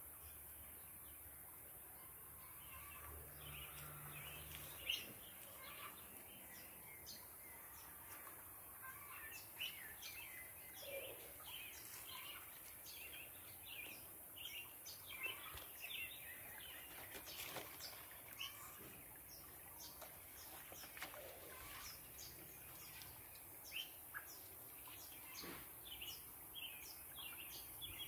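Faint chirping of small birds, many short calls scattered throughout, over a low background hiss.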